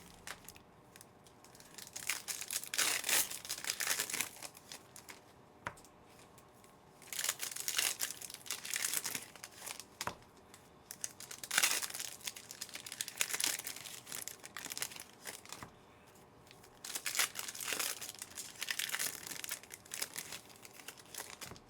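Trading-card pack wrappers being torn open and crinkled by hand, in several bouts of crackly rustling with short pauses between them.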